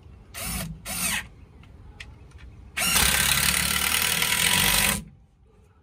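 Black+Decker drill driving a screw into a wooden 2x4 frame: two short trigger pulls about a second in, then one steady run of about two seconds that stops abruptly.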